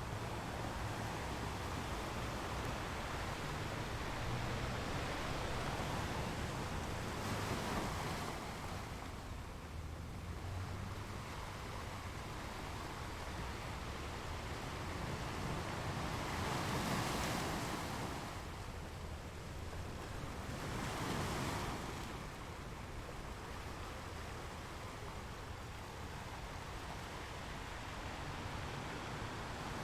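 Sea waves washing on a shore in a continuous rushing surge. The waves swell louder about 8, 17 and 21 seconds in.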